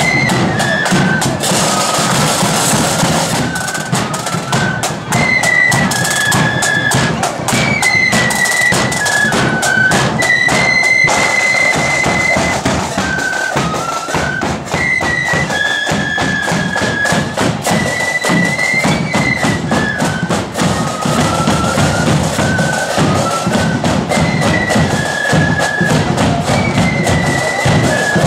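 Marching blood-and-thunder flute band playing a tune: a melody on flutes over a driving beat of side drums and bass drum.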